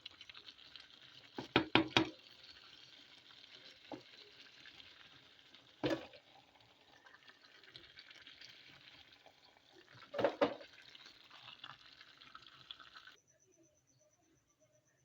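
Food sizzling in a cooking pot as it is stirred, with a utensil knocking sharply against the pot: a quick cluster about two seconds in, then single knocks twice more. The sizzling cuts off suddenly near the end.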